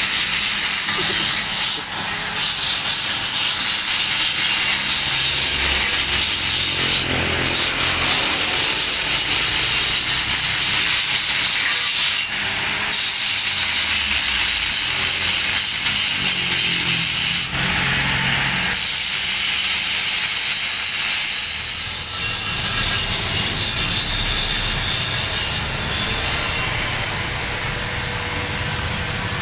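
Poultry scalding machine running, its 1.5 hp electric motor and gearbox turning the wire drum with a steady mechanical rubbing noise. A brief squeal that rises and falls comes about every five seconds in the first two-thirds.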